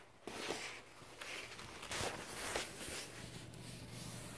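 Soft, irregular rustling and scraping of a phone being handled and swung around while filming.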